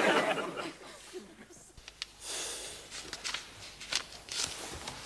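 Studio audience laughter dying away in the first half-second, then soft rustling with a few light clicks.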